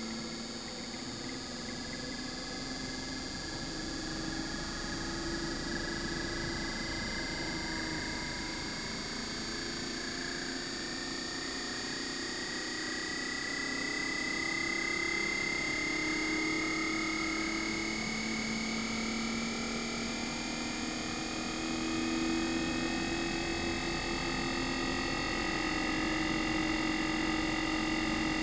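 Inverter-driven compressor of a mini-split air conditioner's outdoor unit running, its whine slowly rising in pitch as the compressor speeds up, over a low hum and steady high tones.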